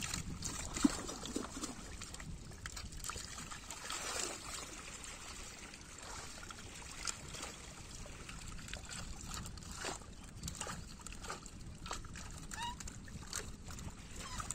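Light splashing and trickling of pond water stirred by people wading and handling a net full of live fish, with scattered small clicks and knocks.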